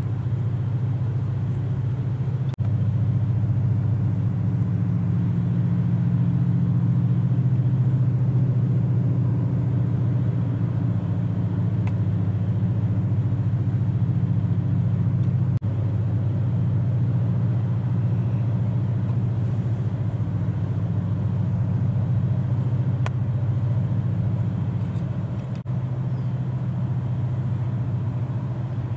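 Diesel engine of a grab-crane gravel carrier ship running steadily under way, a continuous low hum.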